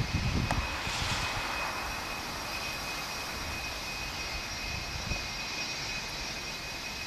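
Jet engines of a Boeing 757 airliner running as it rolls along the runway: a steady rushing noise with a steady high whine, swelling briefly about a second in, with some low rumbling near the start.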